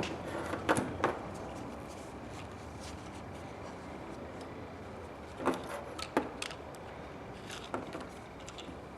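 A few short clicks and light knocks of small metal and plastic fuel-flange parts being handled while a sending-unit wire is fed through, scattered over a steady faint hiss.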